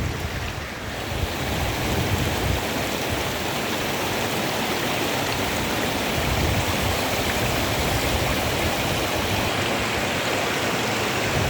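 Waterfall and its stream rushing steadily, a continuous hiss of falling water.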